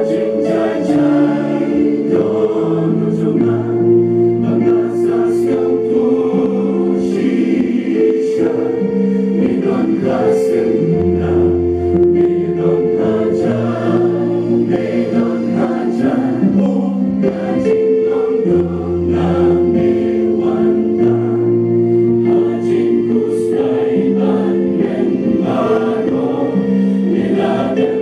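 Mixed choir of men and women singing a hymn in harmony into microphones, moving slowly through long held chords over a low bass line.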